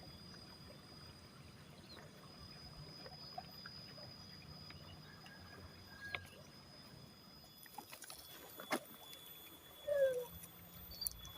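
Quiet riverside ambience: a steady faint high-pitched drone, insects by the look of it, over a low hum, with a few small scattered clicks. There is one sharper click about nine seconds in and a short falling chirp near the end.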